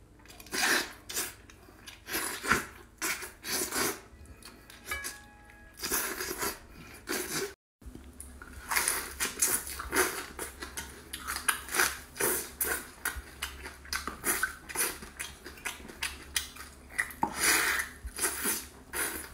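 Close-miked eating sounds: wet smacking, sucking and chewing as meat is pulled off braised bones, then chewing of fried fish after a brief break in the sound about eight seconds in.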